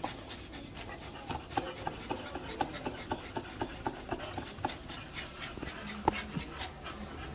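A dog panting in a quick, even rhythm, about three breaths a second, with a few small clicks.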